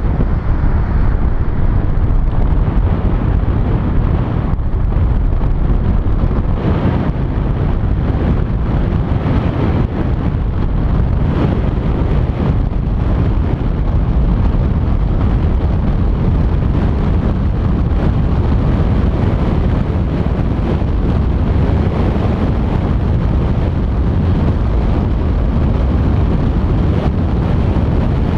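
Steady wind rush buffeting the camera's microphone, mixed with road and tyre noise from a car driving along.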